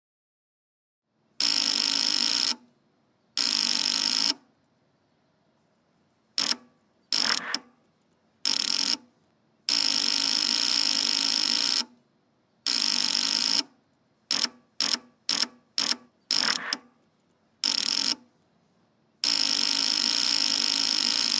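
Faulty car engine starter operated in repeated tries: each try is a steady buzzing whir lasting from a fraction of a second to about two seconds, cutting off into silence without the engine catching. About two-thirds through comes a quick run of short stabs, then a last long try at the end.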